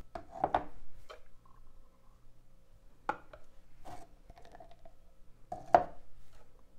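Spatula scraping thick body butter out of a plastic measuring jug and tapping against the jug and a small glass jar: a few short scrapes and taps, the loudest one near the end.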